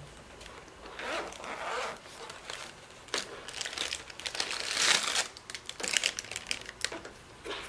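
Zipper on a soft-shell sunglasses case being pulled open, then a clear plastic bag crinkling as it is lifted out and handled, loudest about halfway through.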